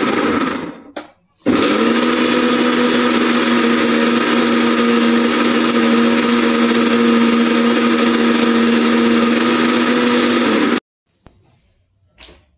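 Electric kitchen mixer grinder running loud and steady. It winds down and stops about a second in, restarts almost at once, then cuts off suddenly near the end, followed by a couple of light knocks.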